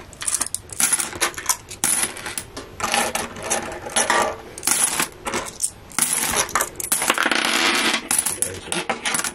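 Pound coins clinking and jingling as a hand rummages through a clear plastic tub of coins and picks them out, with sharp clicks as coins are set down on stacks. About six seconds in the coins are stirred for a couple of seconds in a continuous jingle.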